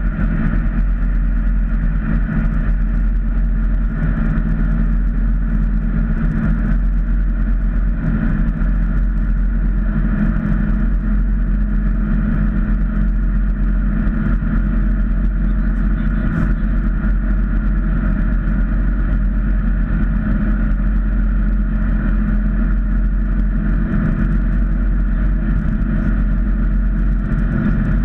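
Ford Mustang cruising at steady highway speed, heard from inside the cabin: a constant engine drone over road and tyre noise.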